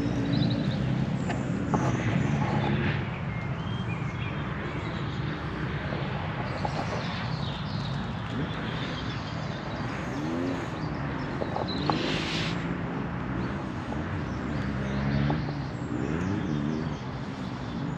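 Outdoor background at a lakeside: a steady low rumble, with a few short bird chirps and occasional light knocks of tackle being handled.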